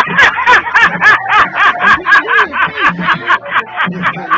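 A man laughing hard in a fast, unbroken run of 'ha' bursts, about five a second.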